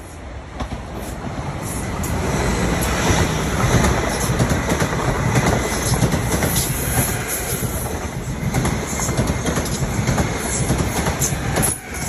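Passenger train passing close alongside the platform at speed: a rush of wheel and rail noise that builds over the first few seconds and then holds, with repeated clicks of the wheels over rail joints. It drops away sharply near the end.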